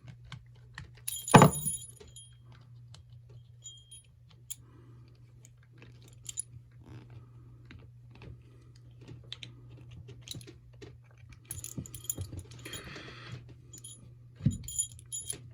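Small metal clicks and clinks of a metal trick bolt puzzle being twisted and handled, loudest about a second in and again in a cluster near the end, over a faint steady low hum.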